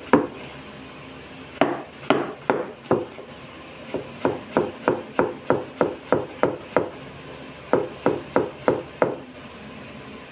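Cleaver chopping bottle gourd (upo) into cubes on a plastic cutting board: runs of sharp knocks, about three a second, broken by short pauses, stopping about nine seconds in.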